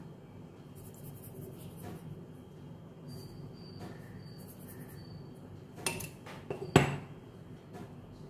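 Two sharp metallic clinks about a second apart near the end, the second louder: a utensil knocking against a stainless steel cooking pan. Under them runs a low steady hum, with a few faint high chirps.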